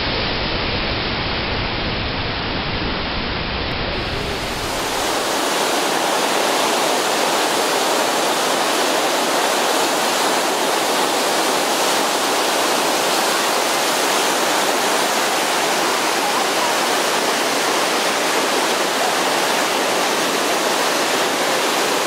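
Rushing whitewater tumbling over rocks, steady and fairly loud, with a deep rumble underneath. About four seconds in it cuts to the brighter, steady rush of a waterfall pouring into churning water.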